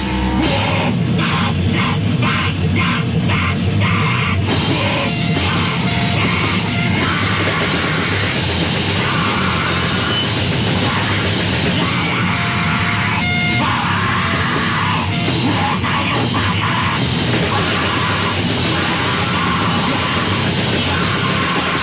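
Heavy metal band playing loud, distorted music on a 1987 demo tape recording. A run of hard, evenly spaced hits drives the first several seconds.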